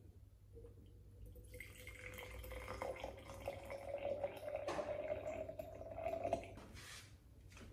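Hot water poured in a thin stream into a glass jar, splashing and bubbling. The pitch of the pour rises slowly as the jar fills, and it stops about six and a half seconds in.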